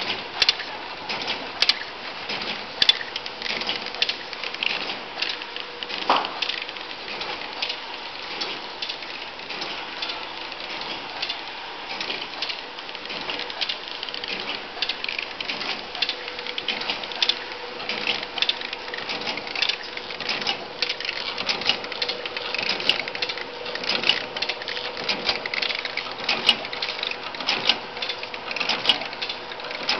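Horizontal flow-wrapping (pillow packaging) machine running, with fast, irregular mechanical clicking over a faint steady hum. A brief squeal stands out about six seconds in.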